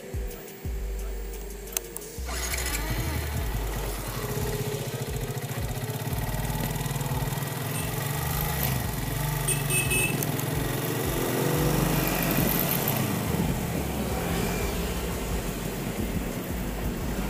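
Motorcycle running on the move with wind and street noise, which comes in suddenly about two seconds in after a quieter stretch with a few clicks.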